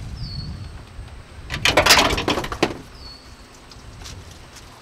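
Hands working on parts in a car's engine bay: a loud rattling scrape of about a second, starting about a second and a half in.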